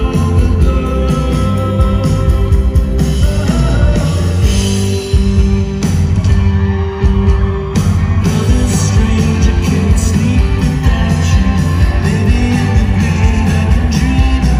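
A live indie folk-rock band playing loudly, with acoustic and electric guitars, drums and keyboard under a sung vocal.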